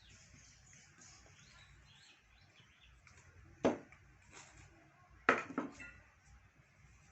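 Flat wooden spoon (mwiko) folding flour into pancake batter in a mixing bowl, knocking sharply against the bowl twice, the second knock followed by a brief clatter.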